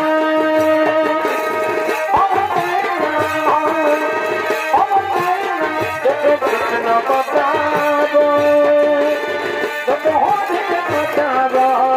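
Purulia Chhau dance music: a shehnai-type reed pipe plays a melody of held notes with bends and quick ornaments, over steady drumming.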